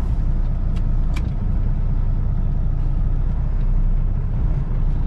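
Kenworth T680 semi tractor's diesel engine running at low revs, heard from inside the cab as the truck creeps slowly. There are two faint clicks about a second in.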